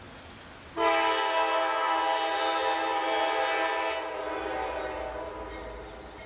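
Air horn of an approaching Norfolk Southern diesel locomotive: one long, steady chord sounded suddenly about a second in, held for about three seconds, then cut off, its sound dying away over the following two seconds.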